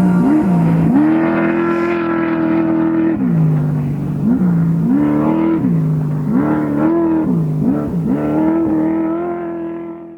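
Off-road race vehicle's engine under hard throttle, its pitch repeatedly rising, holding steady high, then dropping back as the throttle goes on and off. It fades away in the last second.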